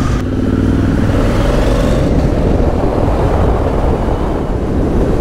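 Honda Africa Twin CRF1100's parallel-twin engine pulling away, its revs rising in the first second or so. It then runs on under an even rush of riding wind on the microphone.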